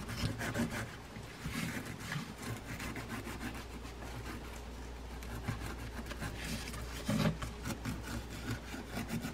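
A green kitchen scrub pad rubbed over the side plate of a Newell 235-5 fishing reel: a continuous scratchy scrubbing.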